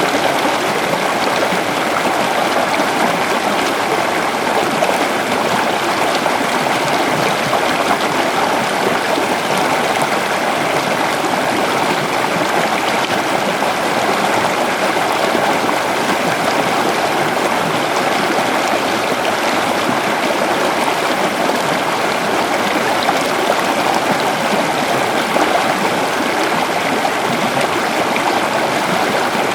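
Waterfall water falling and splashing, a steady rushing with a constant level.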